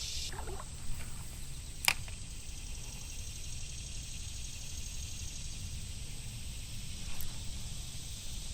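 Steady high-pitched chorus of insects over a low outdoor rumble, with a sharp click about two seconds in and a couple of fainter knocks.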